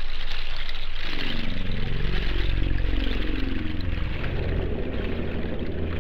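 Dark ambient drone music: a low, engine-like synthesizer drone from a Korg Poly-800 layered with samples. About a second in, a cluster of tones gliding up and down enters over the drone. Around four seconds in it dissolves into a grainy, noisy texture as the sound slowly fades.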